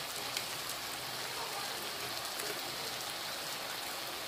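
Squid pieces with lemongrass and spices sizzling steadily in a wok over high heat, cooking in the liquid the squid gives off: an even hiss with light scattered crackles.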